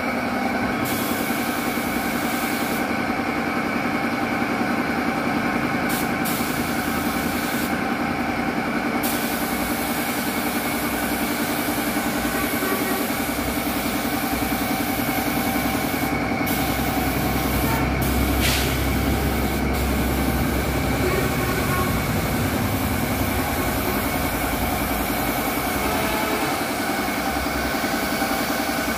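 An air compressor runs steadily while a gravity-feed paint spray gun hisses in bursts as its trigger is pulled and released, spraying paint. The hiss starts and stops a few times in the first several seconds, then runs almost without a break.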